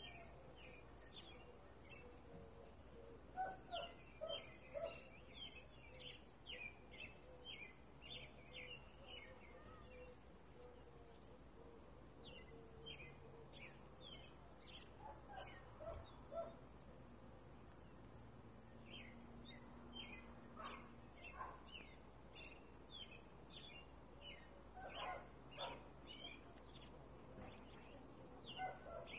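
Faint birdsong: small birds chirping in quick runs of short high notes, with a lull about halfway through.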